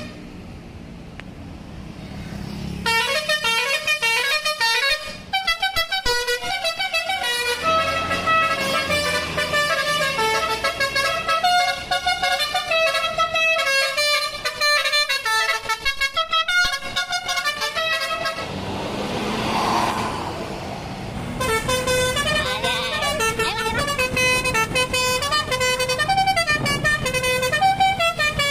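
Basuri V3 telolet bus horn playing rapid multi-note tunes, its sound sped up, with quick jumps between several tones. It pauses briefly near the start and again about two-thirds of the way through, where a rushing noise takes over for a few seconds.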